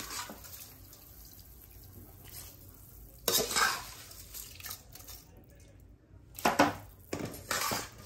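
Pan of boiling water bubbling while soaked rice is tipped in, with three short bursts of clatter and splashing against the pan: one about three seconds in and two near the end.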